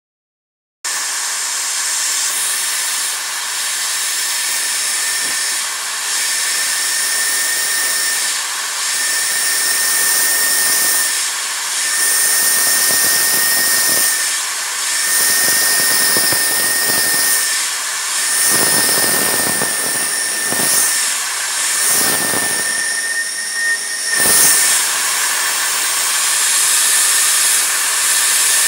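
Milling machine running and cutting holes in a PVC part: a steady high whine and hiss from the spindle, with the cutting sound swelling and easing at irregular intervals as the tool works into the plastic.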